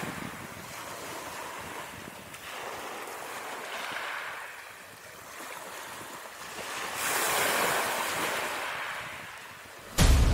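Ocean surf: a steady wash of waves that swells and recedes, loudest about three-quarters of the way through. Music cuts in loudly just before the end.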